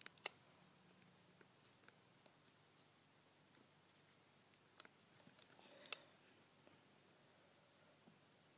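Faint, sparse clicks and taps of a small screwdriver and metal parts against an iPhone 4's steel frame as its corner screws are worked out. One sharp click comes just after the start and a short cluster of clicks comes past the middle, the loudest of them near its end.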